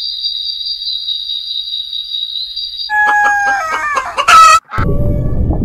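A steady high-pitched buzz, then about three seconds in, hens clucking and a rooster crowing loudly. The crow cuts off abruptly and a low rumbling noise follows.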